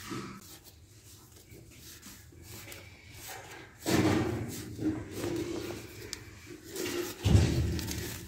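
A hand scraping and crumbling dry, caked mud on the top of a clay stove, with two louder spells about four and seven seconds in.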